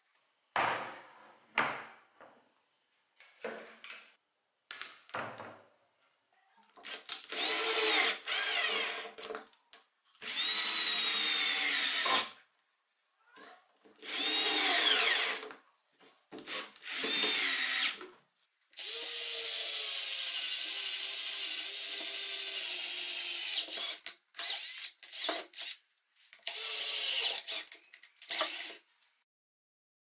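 Electric drill running in repeated bursts of one to five seconds, its whine gliding in pitch as it speeds up and slows. The longest run comes just past the middle.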